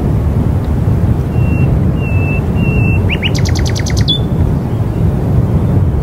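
Steady low wind rumble with a songbird calling over it: three short whistled notes, then a fast trill of about ten notes about three seconds in, ending on one higher note.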